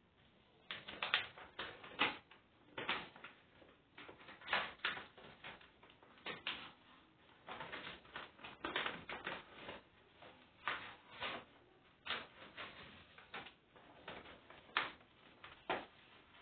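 Paper rustling and crinkling as a letter is opened and unfolded by hand, in short irregular crackles with brief pauses between them.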